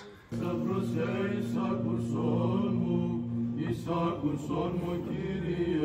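Male voices chanting a slow Orthodox hymn, with one steady held drone note beneath the melody that drops out a little past halfway.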